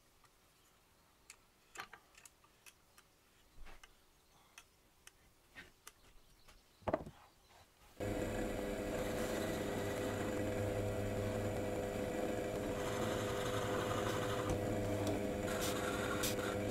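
Scattered faint clicks and light taps, with one louder knock about seven seconds in. From about eight seconds in, a benchtop drill press motor runs with a steady hum, its bit boring into an ash stretcher near the end.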